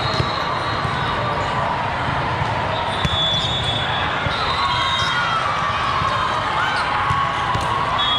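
Volleyball hall din: a steady crowd murmur from many courts, broken by several sharp slaps of the ball being served and played through a rally.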